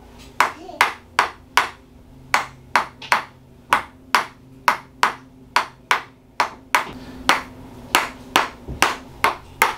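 Tok sen massage: a hammer striking a stick held against a person's back, giving sharp, ringing knocks about two to three a second, with a brief pause near two seconds in.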